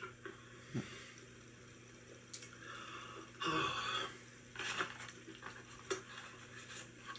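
Faint eating and handling noises from a mukbang: a few short rustles and mouth sounds, the loudest about halfway through, over a steady low hum.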